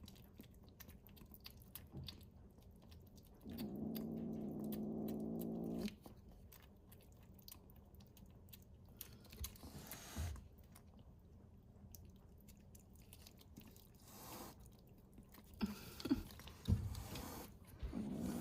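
A kitten chewing and crunching food, with many small clicks. About four seconds in, a low steady growl runs for a couple of seconds: the kitten growling over its food as it eats.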